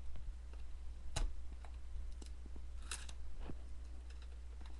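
Unboxing contents being handled: a few light clicks and taps, the two clearest a little after one second and near three seconds, over a low steady hum.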